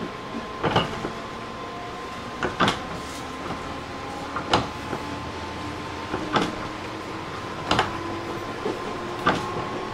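Inside a JR East 205-600 series electric train running slowly: the wheels click over rail joints about every two seconds, the clicks coming a little closer together toward the end as the train picks up speed, over a steady hum of the car's equipment.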